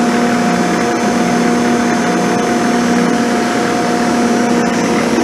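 Abene milling machine running a 6-flute end mill through a 20 thou cut across the top of a cast iron straight edge casting: a steady machine hum with a higher whine held over it.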